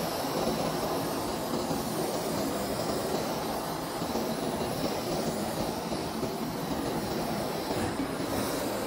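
Handheld gas blowtorch burning with a steady, rushing hiss of the flame.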